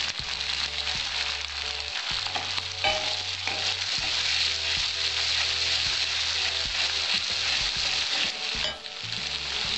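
Chopped garlic, ginger and green chillies sizzling in hot oil in a metal kadai, stirred with a wooden spatula that clicks and scrapes against the pan.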